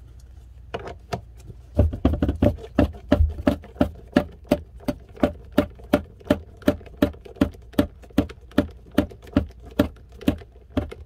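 Hand screwdriver turning a long stainless steel screw into the drilled-out plastic of a Dometic Sealand RV toilet's pedal mechanism. It clicks steadily about three times a second, with a few low bumps near the start of the clicking.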